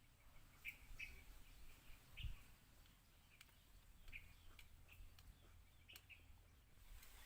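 Near silence with faint, scattered short chirps, like small birds, and a few soft clicks.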